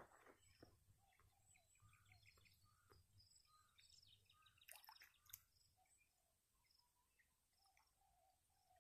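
Very faint open-air ambience with scattered small bird chirps, and a couple of faint clicks about five seconds in.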